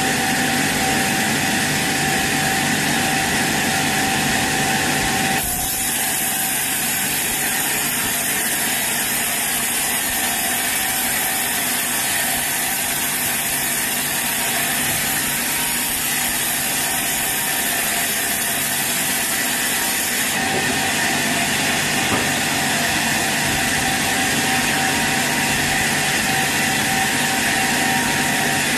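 Sawmill saw running and cutting through a teak log, a loud steady noise. About five seconds in it turns abruptly to a higher, hissing sound with less rumble, and switches back near the end.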